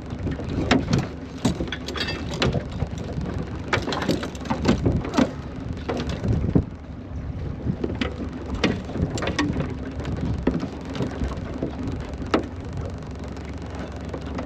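Water splashing and dripping as a mesh mud-crab pot is dunked and hauled out of the river to rinse off mud, with scattered sharp knocks and clatter of the pot's frame against the aluminium boat. The knocks thin out after about ten seconds.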